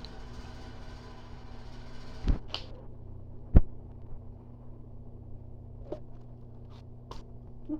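Steady low hum with two sharp knocks, the second and louder one about three and a half seconds in, followed by a few faint clicks.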